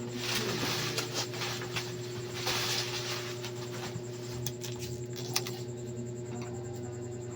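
Handling noises: rustling in the first few seconds, then scattered light clicks and taps, over a steady low hum.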